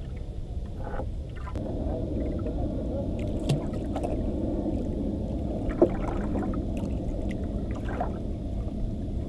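Low, steady rumble of water sloshing and wind on a small fishing boat, growing louder about a second and a half in, with a few light knocks.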